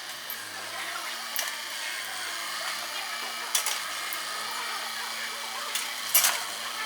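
Excavator demolishing a house: a steady engine hum and hiss, broken by three sharp cracks and knocks of breaking debris, the loudest near the end.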